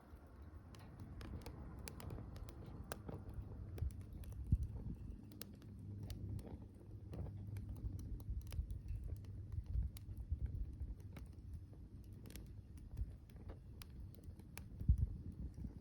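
Wood bonfire burning, with frequent sharp crackles and pops scattered irregularly over a low rumble of flame.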